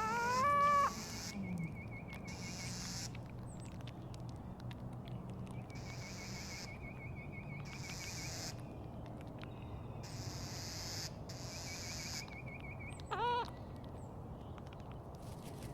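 A seagull calling: a loud, clear, rising call in the first second, then a single short call near the end, with a faint wavering chirp repeating in the background.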